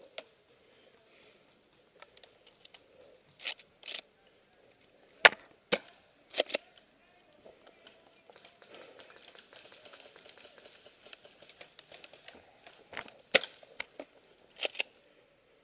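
Airsoft gunfire: a dozen or so sharp cracks and clicks, several in close pairs, the loudest a little over five seconds in and another cluster near the end, with faint rustling between them.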